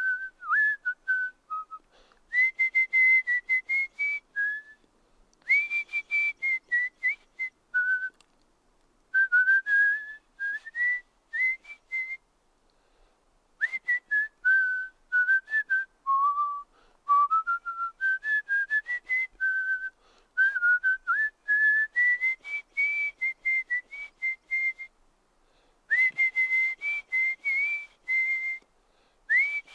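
A person whistling by mouth: phrases of many short notes that step up and down in pitch, with brief pauses between phrases.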